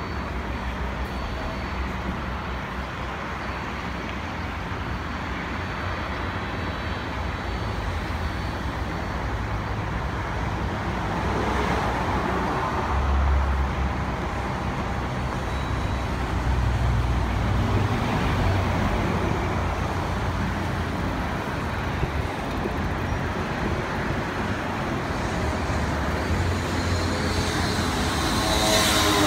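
Steady outdoor rumble of city road traffic mixed with distant jet-engine noise from the airport. It swells a little twice in the middle, and something passes close, with a sweeping whoosh, near the end.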